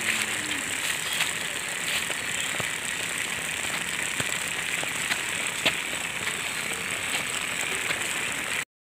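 A homemade cardboard toy car with a small electric motor drives over rough asphalt, giving a steady crackling hiss with scattered small clicks. The sound cuts off abruptly near the end.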